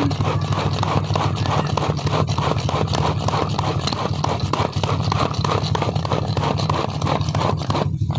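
Manual push-down food chopper being pumped by hand: plunger and spinning blades clattering rapidly, several strokes a second, as they chop a wet chili spice paste.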